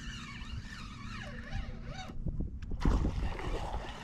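A spinning reel being cranked fast to reel in a hooked fish, its gears whining in a pitch that rises and falls with each turn of the handle. The whine stops about two seconds in and is followed by knocks and rubbing close to the microphone.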